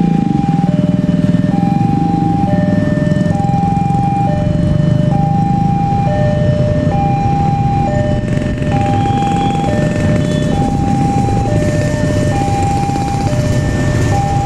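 Indonesian railway level-crossing warning alarm sounding: an electronic two-tone chime alternating between a higher and a lower note, about one note a second. A steady low rumble runs under it.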